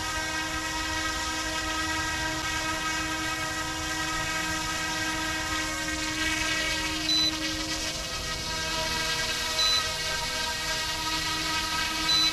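YXZNRC F09-S RC helicopter's brushless direct-drive rotor motor running with a steady, many-toned whine, flying on a low battery as its automatic landing begins. Three short, high electronic beeps come about two and a half seconds apart in the second half.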